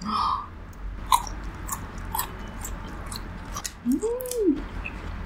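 Crunchy bites and chewing of kkanpung-sauced deep-fried pork, with a string of sharp crackles from the batter. A short rising-and-falling hum about four seconds in.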